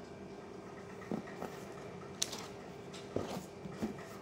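Cardboard box and printed study books being handled: a scatter of short, light knocks and rustles, one just after a second in and several more in the second half, over a faint steady hum.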